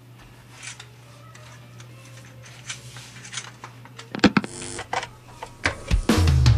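Steady low electrical hum of studio gear with scattered small clicks and ticks. About four seconds in, a sharp loud click with a brief ringing tone as a plug goes into a jack. Music with guitar starts just before the end.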